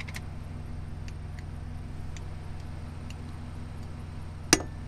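Steady low hum, with faint scattered ticks and one sharp clink near the end as a glass jar of ghee is handled with a spoon.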